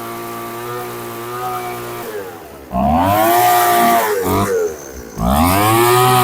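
Craftsman 215 mph leaf blower's two-stroke engine running after a tune-up: it runs steadily, then is revved up to full throttle twice, each time climbing quickly in pitch and holding high for a second or more before dropping back.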